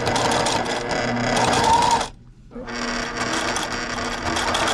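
Electric sewing machine running fast, its needle stitching the edge of insect netting. It stops briefly about two seconds in, then starts again.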